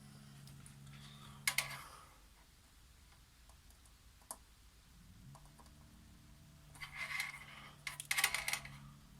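Light clicking and rattling from small parts being handled on a workbench, in a short burst about one and a half seconds in and a longer one near the end. Under it a low steady hum stops about two seconds in and comes back about halfway through.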